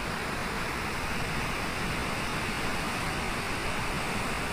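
Floodwater pouring through open dam spillway gates and churning below, a steady rushing noise.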